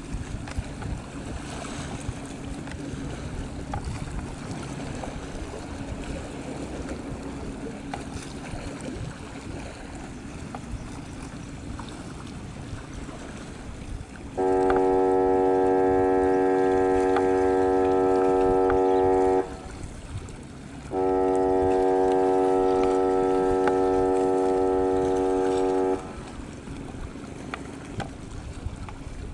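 A ship's horn sounds two long blasts of about five seconds each, with a gap of about a second and a half between them, over the steady rush of wind and water from fast boats at sea.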